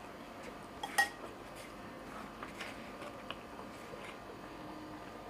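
Cutlery clinking against a plate during a meal: one sharp, ringing clink about a second in and a few lighter taps.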